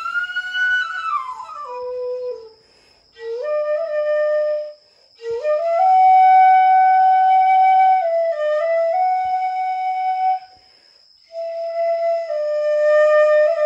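Shinobue, a Japanese transverse bamboo flute, playing a slow melody of long held notes. It starts with a falling phrase and breaks off for three short breath pauses between phrases.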